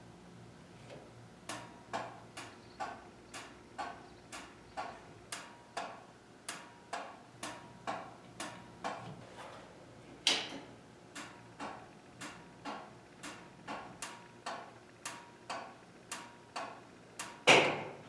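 Turn-signal flasher unit clicking steadily, about two clicks a second, with the turn signals switched on: the newly fitted three-prong flasher is working. A sharper click comes about ten seconds in and another near the end.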